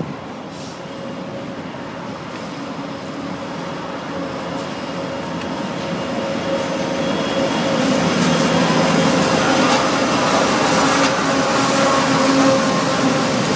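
Diesel-electric freight locomotives, an EMD SD70MAC leading and a GE AC4400CW behind, approaching and passing close by, their engines running steadily. The sound grows louder as the train nears and is loudest over the second half as the locomotives go past.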